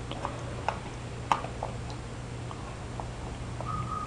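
Baby chewing and mouthing bread: soft, irregular lip-smacking clicks, with a brief high steady tone near the end.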